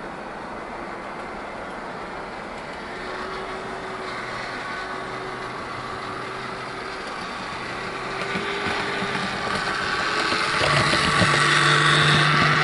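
Heljan Class 17 Clayton model locomotive's electric motor humming and its wheels running on the rails as it approaches, getting louder toward the end as it passes close by. It is running smoothly while being run in after lubrication.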